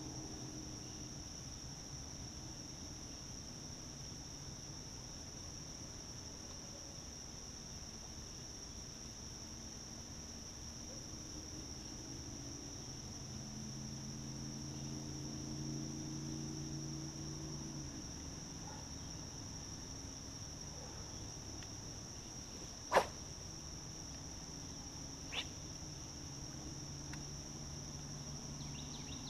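Steady, high-pitched insect chorus from the wooded shore. A faint low hum passes in the middle, and two sharp clicks come near the end.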